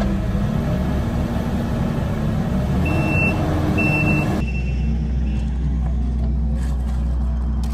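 Diesel engine of a Kubota compact track loader running, its pitch rising and falling a little, with two short backup-alarm beeps about three and four seconds in. After a sudden change a steady low engine drone carries on.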